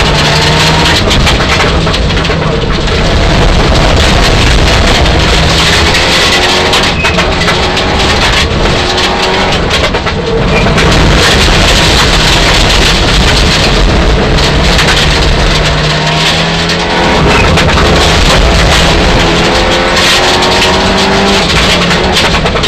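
Mitsubishi Lancer Evolution IX rally car's turbocharged four-cylinder engine heard from inside the cabin at full stage pace, loud throughout. The engine note climbs again and again, with short lifts between the climbs as it is shifted and driven through corners, over constant road and tyre noise.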